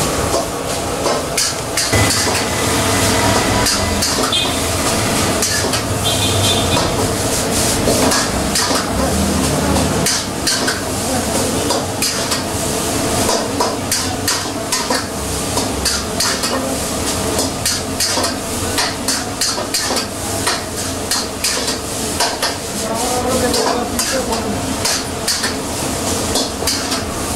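Gloved hands squelching and turning a whole chicken in a thick spiced marinade in a steel bowl: a wet squishing sound with many quick clicks and knocks against the bowl.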